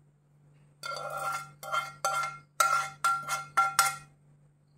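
A steel spoon knocks and scrapes mustard seeds out of a tilted metal pan into a bowl. The pan rings at the same pitch with each knock: about eight quick strokes, starting about a second in and stopping shortly after four seconds.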